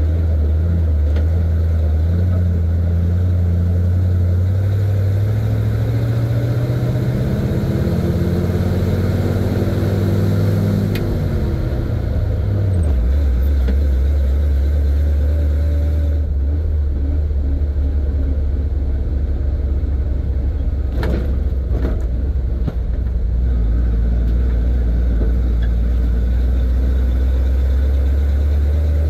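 1970 Chevy C50 dump truck's engine heard from the cab while driving: it revs up with rising pitch for several seconds, drops back sharply about twelve seconds in, then runs steadily at a low pitch. A couple of brief knocks come about two-thirds of the way through.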